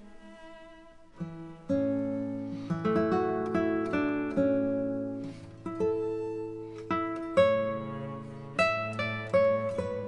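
Background music of a plucked string instrument such as an acoustic guitar, playing picked notes and chords that ring out and fade. A low held bass note comes in about two seconds in.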